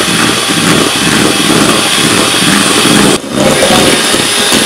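Electric hand mixer running at speed, its beaters whirring through egg whites in a stainless steel bowl as they are whipped into meringue. The sound breaks off for a moment about three seconds in.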